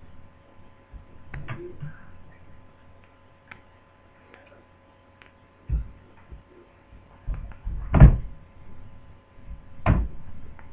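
Clicks and knocks of laptop parts being handled and fitted during reassembly, with three heavier thumps about six, eight and ten seconds in, the middle one the loudest.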